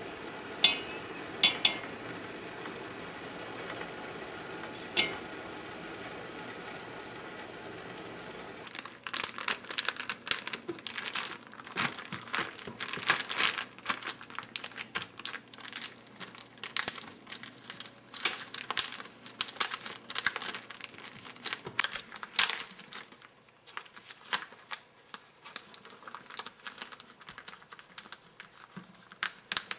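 Water boiling in a pot with a steady hiss, broken by a few sharp metal clinks of a mesh strainer against the pot. About nine seconds in it gives way to a plastic zip-top freezer bag crinkling and crackling as hands press and flatten it, the crackling thinning out and growing quieter for the last several seconds.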